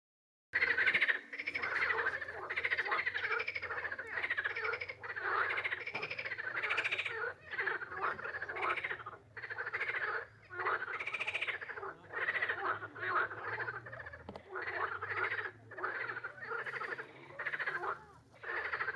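A chorus of frogs croaking: many loud, rattling calls overlapping in bouts about a second long, with short dips between them.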